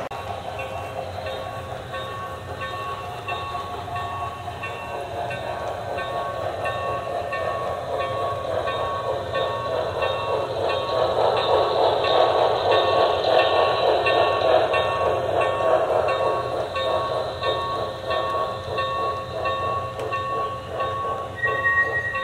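HO-scale model steam locomotive running on the layout with its steam sound effects chuffing in a steady rhythm, its wheels and the passenger cars rolling over the track. It grows louder toward the middle as the locomotive passes close by, then eases off.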